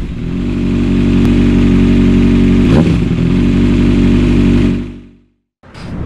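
Motorcycle engine running steadily, with a brief blip of the throttle about three seconds in, then fading out about five seconds in.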